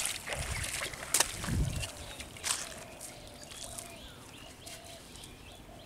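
Shallow water splashing and sloshing as a cast net is hauled in by a person wading knee-deep, with a few sharp splashes in the first two and a half seconds, the loudest about a second in and again shortly after two seconds, then only light lapping.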